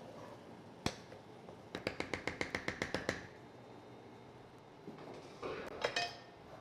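Cooking utensils knocking against a pot of thick sauce: one tap about a second in, then a quick run of about a dozen light taps, like a spoon being rapped on the rim to shake off sauce, and a softer scrape with a couple of knocks near the end.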